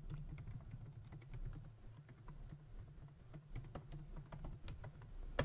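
Faint typing on a computer keyboard: an uneven run of quick key clicks, with a slightly louder click near the end.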